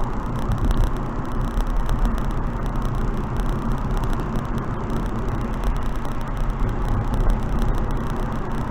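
Car driving at expressway speed: steady wind noise and tyre-road rumble with a deep low drone, holding even.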